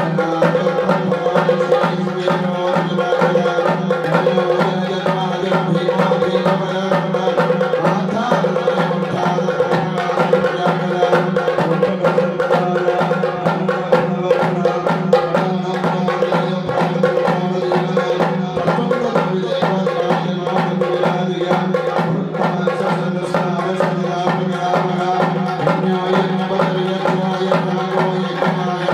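Devotional music: rapid hand-drum strokes over a steady droning tone, continuing without a break.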